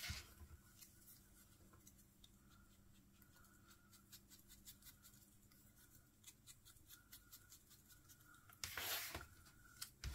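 Faint scratching and light ticks of small cardstock die-cut pieces being worked by hand, with a louder brushing scrape about nine seconds in.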